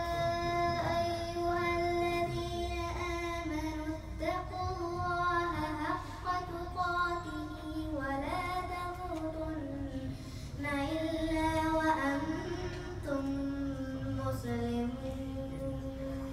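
A young girl reciting the Quran in a melodic chant, one voice holding long drawn-out notes that step down and bend in pitch, in phrases that pause every two to three seconds.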